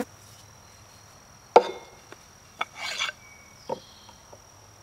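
Hand-forged steel tool heads knocked and set down on a wooden bench. There is one sharp clack with a short ring about a second and a half in, then a few lighter knocks and a brief scrape.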